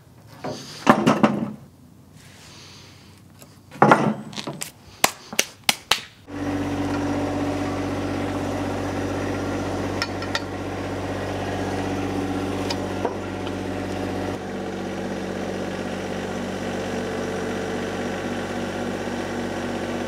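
Wooden boards clunking and knocking as they are handled and stacked on a sawmill bed, with a quick run of knocks just before six seconds in. Then a John Deere compact tractor's diesel engine runs steadily, with a few light metal clicks from log handling, and drops a little in level about halfway through.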